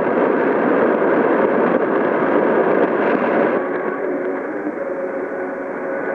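Shortwave radio receiver in AM mode hissing with static while it is tuned between stations in the 60-metre band. About three and a half seconds in the hiss turns duller, and faint steady whistles come through it.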